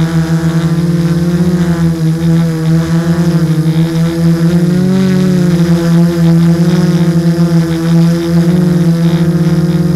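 Six brushless outrunner motors (LD-Power MT3110 KV780) spinning 10x4.5 propellers on an F550 hexacopter in flight. They make a loud, steady drone of several close tones that beat against each other, with the pitches shifting briefly about five seconds in as the motor speeds change.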